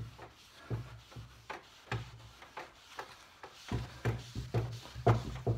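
A waxed pine tabletop being buffed in brisk back-and-forth strokes: rubbing over the wood, with a dull knock or thud about twice a second as each stroke jolts the table.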